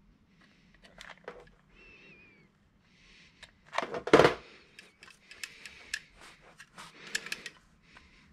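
Tools and parts handled on a wooden workbench: a loud knock about four seconds in as a hot glue gun is put down on the bench, then a run of small clicks and rattles as the handbrake lever from a 1989 Alfa Romeo 33 is worked by hand.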